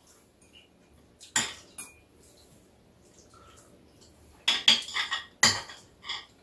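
Metal chopsticks clicking and clinking against dishes while eating: two clinks about a second and a half in, then a quick run of clinks near the end, the last one ringing briefly.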